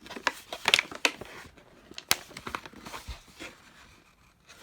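Product packaging for a cordless screwdriver being handled, crinkling and rustling with several sharp clicks and taps.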